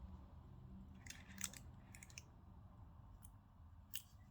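A few faint, sharp clicks and taps of small phone parts and tools being handled while a smartphone is reassembled, the clearest about a second and a half in and near the end.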